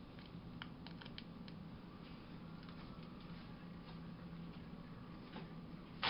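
Faint light clicks and handling noises from hands fiddling with a small item, over a low steady hum, with a short louder rustle right at the end.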